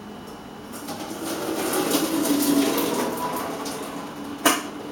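Hot water poured off a pan of boiled vegetables into the sink as they are drained, a rushing pour that swells and then tails off. A single sharp knock comes near the end.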